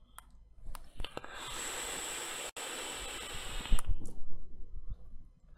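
Long draw on a vape dripper atomizer fired at 40 watts on a Staggered ni80 coil: a steady hiss of air pulled through the hot coil for about two and a half seconds, after a few clicks, ending in a few low thumps.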